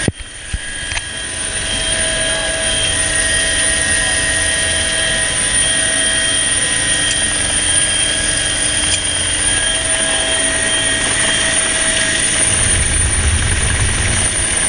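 Helicopter engines and rotor running steadily, heard from inside the cabin with the side door open: a steady whine with several high tones over a rushing of wind and rotor noise. The sound dips at the very start and builds back over about two seconds, and the low rumble swells near the end.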